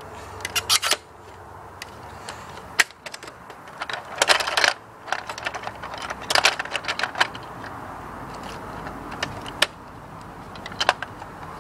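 Irregular plastic clicks and rattles of a Nerf Havok Fire EBF-25 belt-fed blaster being handled and worked on to clear a jam, in scattered clusters.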